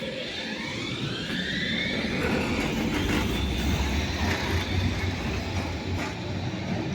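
Electric tram's traction motors whining, the pitch rising over the first few seconds as it gets under way and then holding steady, over a low rumble of wheels on rails.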